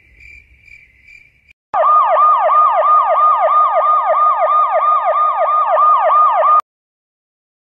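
Police siren sound effect in a rapid yelp, about four falling sweeps a second. It starts loudly about two seconds in and cuts off suddenly near the end, after a faint pulsing beep.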